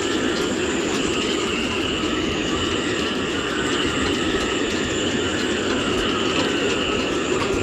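Gale-force wind howling through the rigging of moored yachts: a steady rush with a low rumble beneath and several high whistling tones held over it, wavering a little in pitch.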